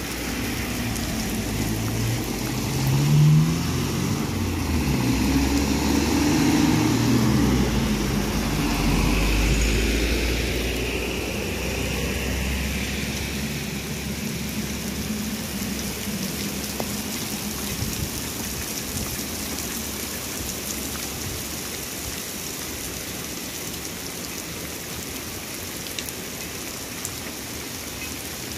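Heavy rain falling steadily on a wet asphalt road, an even hiss throughout. During the first half a motor vehicle passes, its engine rising and then fading out about twelve seconds in, leaving only the rain.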